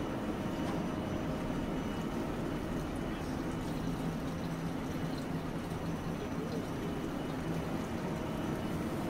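Steady hum of a standing Kagoshima City streetcar, its onboard equipment running while it waits at the platform, with a constant low tone and a faint high whine.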